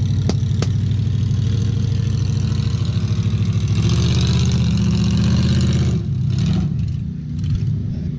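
LS-swapped 6.0 V8 of a lifted Jeep Wrangler YJ, running on headers, pulling through deep water. The throttle comes up and the engine gets louder about four seconds in, then backs off about six seconds in.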